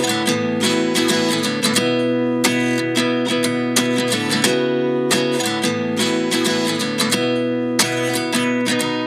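Background music: an acoustic guitar playing a run of picked notes, with no singing.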